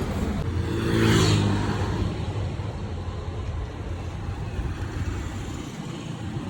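A road vehicle's engine swelling louder about a second in and then fading, over a steady low rumble of traffic.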